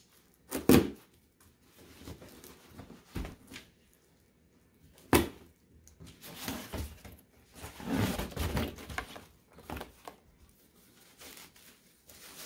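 Packaging being pulled off a boxed wooden step-stool seat: cardboard and plastic wrap rustling and crinkling, with a sharp click about a second in and another about five seconds in, and a long stretch of rustling after that.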